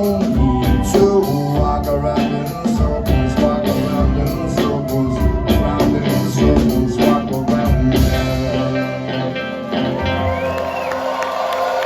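Live rock band playing the closing bars of a song with drums, bass and guitar. About eight seconds in, the drums and bass stop and a held note rings on.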